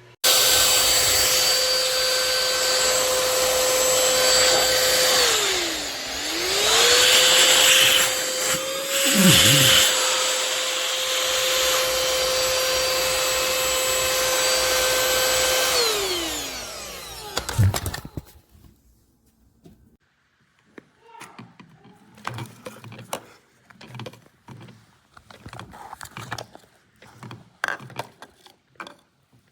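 eufy HomeVac H11 cordless handheld vacuum running with a steady whine; its pitch sags once about six seconds in and recovers. About sixteen seconds in it is switched off and winds down with a falling whine, followed by a knock and light clicks and taps of plastic being handled.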